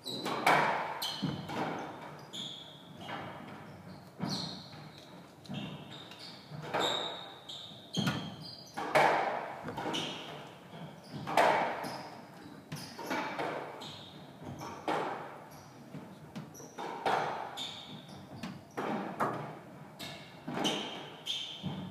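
Squash rally: the ball cracking off racquets and the court walls about every second or so, with the hits echoing in the enclosed court. Short high shoe squeaks on the hardwood floor fall between the hits.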